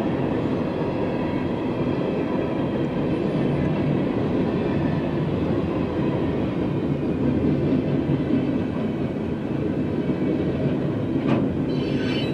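A long freight train's cars rolling past close by, giving a steady rumble and clatter of wheels on the rails, with a couple of sharp clanks near the end.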